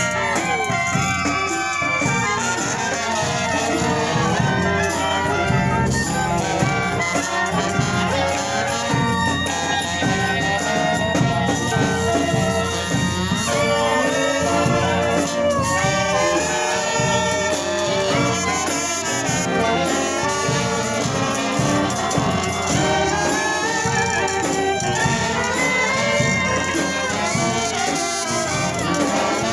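Brass band playing live: several horns over steady percussion, with a long held high note in the middle.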